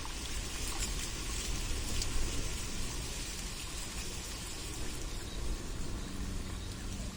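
Steady, even hiss of water with a few faint ticks.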